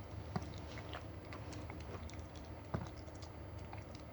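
Mother dog licking and nibbling at her newborn puppy: soft, irregular wet clicks and smacks over a low steady hum.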